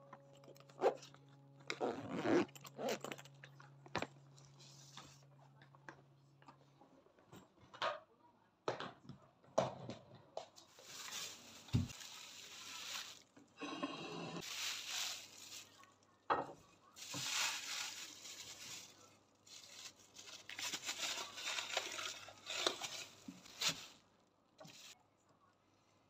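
Thin plastic bag crinkling and rustling in repeated bursts as a lump of homemade butter is unwrapped on a plate, after a first stretch of scattered light taps and clicks from handling things.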